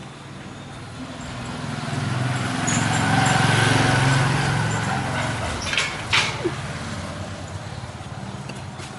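A road vehicle driving past, its engine and tyre noise swelling to a peak about halfway through and then fading. A couple of sharp clicks come just after the peak.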